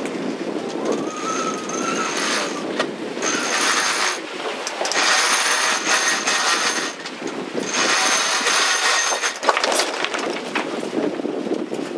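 Sheet winch on a sailing yacht being cranked by hand, giving several bursts of rapid ratchet clicking with short pauses between, over wind and water noise.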